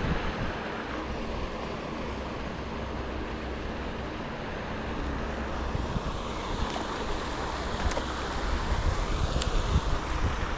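Wind buffeting the microphone, a steady rumbling noise with a few faint clicks in the second half.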